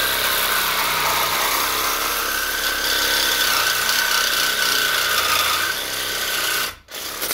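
Reciprocating saw cutting through a steel steering knuckle, a loud steady buzz that stops briefly near the end, runs again for a moment, then cuts off.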